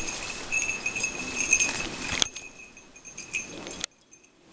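A small bell jingling in quick, irregular shakes, as on a dog's collar, over a rustle of footsteps through long grass. There is a sharp click about two seconds in, after which the jingling fades and cuts off shortly before the end.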